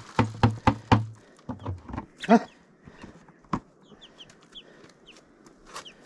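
Metal and plastic dishes clattering as they are washed and set down, a quick run of knocks in the first two seconds. A hen clucks about two seconds in, followed later by a few short high chirps.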